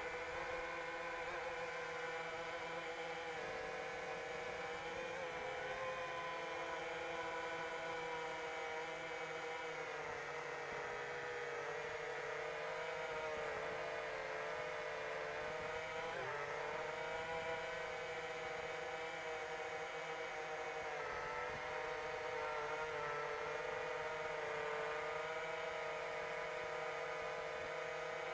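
Brushless motors and propellers of a 7-inch FPV quadcopter whining steadily in flight, the pitch wavering with throttle changes and dipping sharply about sixteen seconds in.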